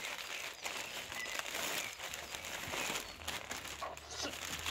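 Crinkling and rustling of a printed plastic bag and newspaper packing as gloved hands pull the wrapping open, an irregular crackle that never stops.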